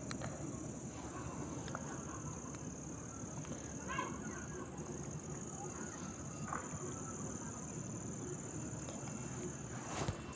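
Crickets trilling steadily, one unbroken high-pitched chirr, over faint low rustling and handling noise. There is a brief faint pitched call about four seconds in and a soft knock near the end.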